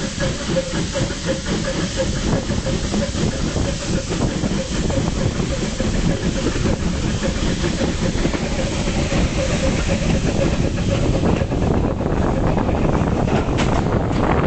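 Passenger train hauled by a pair of steam tank locomotives, heard from an open carriage window as it climbs: a steady rumble of the carriage on the rails under a loud rush of steam hiss and passing air. The higher hiss thins out near the end.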